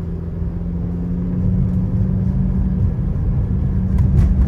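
Engine and road noise heard inside a moving car: a steady low drone with a held hum, growing a little louder, and a couple of light clicks about four seconds in.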